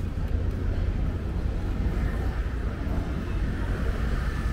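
City street ambience: a steady low rumble of passing traffic.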